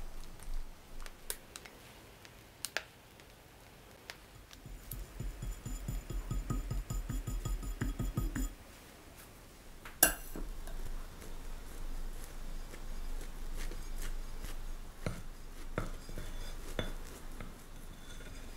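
Close-up cake-decorating sounds: a spatula spreading chocolate buttercream and a metal scraper smoothing it around the cake's side, making soft smearing and scraping noises. A quick run of soft strokes comes in the middle, with sharp clicks and taps of the tools, the loudest one about halfway through.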